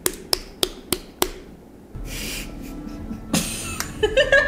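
Sharp, evenly spaced clicks, about three a second, that stop a little over a second in. A woman laughs briefly near the end.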